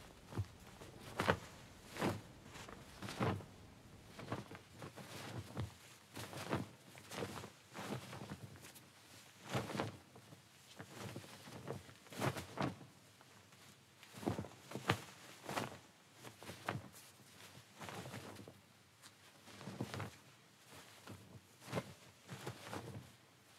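Slow footsteps, a little uneven, about one step a second.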